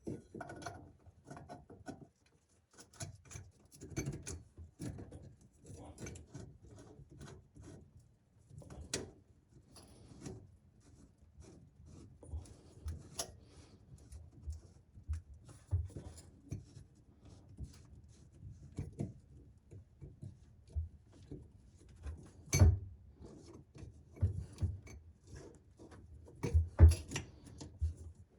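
Sink drain pipe fittings being handled and fitted back together: scattered rubbing, scraping and clicking, with a few sharper knocks, the loudest near the end.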